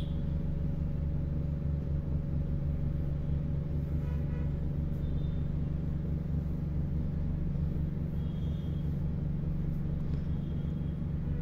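Steady low mechanical hum made up of several fixed low tones, unchanging throughout.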